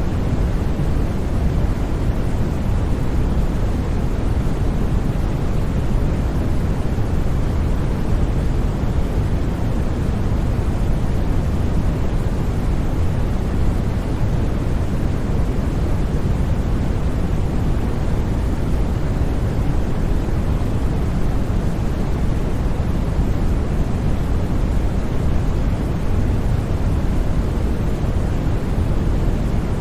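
Continuous sleep-aid noise, a steady unbroken hiss with no changes, heaviest and loudest in the deep low end and thinning out toward the treble.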